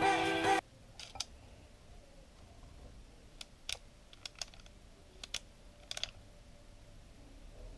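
Guitar music cuts off about half a second in. After it come light, scattered clicks and taps, singly and in pairs, from fingers handling a Lomography LC-A+ camera's plastic lens housing and focus lever.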